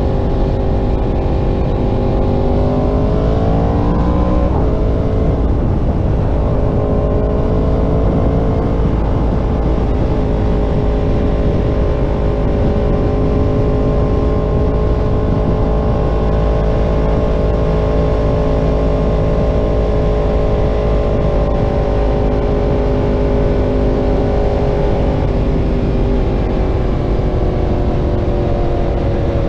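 Yamaha R1's inline-four engine through a Graves aftermarket exhaust, heard from the rider's seat under way. It climbs in pitch for a couple of seconds and drops with an upshift about four seconds in. It then holds a steady cruise and slowly eases off near the end, over a heavy low wind rumble.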